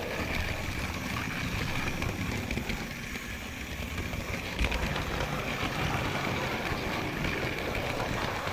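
A model railway train running steadily along the track, heard from a camera riding on it: a continuous motor whirr and wheel rumble on the rails, with a single knock about halfway through.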